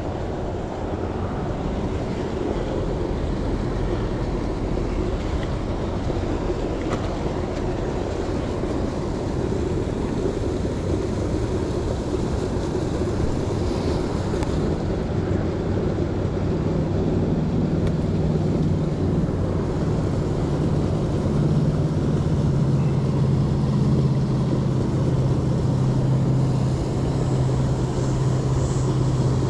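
Steady rushing noise throughout. A low steady hum joins about halfway through and grows stronger toward the end.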